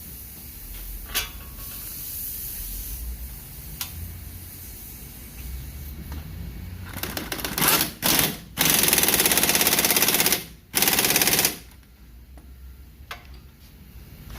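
Impact wrench hammering the front hub assembly's mounting bolts tight: a few short bursts about halfway through, then one long burst of about two seconds and a shorter one.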